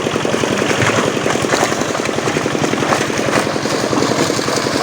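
A small engine running steadily at idle, with a fast, even chug.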